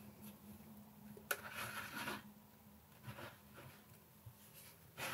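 Faint handling of a plastic scale model by hand: a sharp click about a second in, with brief rubbing and scraping of plastic parts against each other and the cutting mat.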